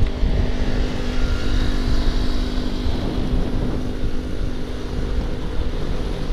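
Steady engine and road noise from a moving vehicle: a continuous low rumble with a faint steady engine hum.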